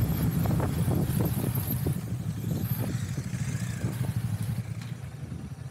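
Motorcycle engine running under way, a low steady drone whose level drops off over the last few seconds.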